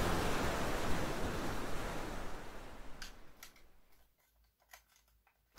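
Soft background music fading out to near silence over the first four seconds, with a few faint clicks in the quiet stretch near the end.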